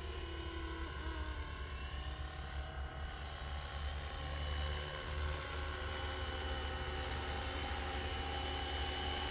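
Electric Flywing RC helicopter in an MD 500 scale body, its two-bladed main rotor hovering: a steady motor and rotor whine over a low hum.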